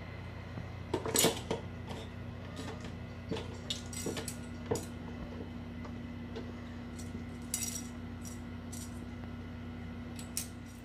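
A white plastic spoon clattering and skittering on a tiled floor as kittens bat it about: irregular light taps and clicks, with the loudest clatter about a second in.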